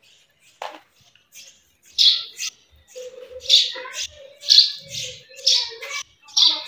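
A bird calling close by: a run of short, harsh chirps that starts about two seconds in and repeats roughly once or twice a second.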